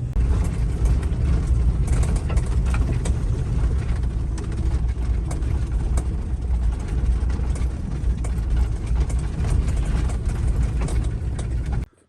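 Camper van driving slowly over a rough, overgrown forest track: a steady low rumble with many sharp clicks and cracks from the body rattling and branches brushing and snapping along its sides. It cuts off suddenly near the end.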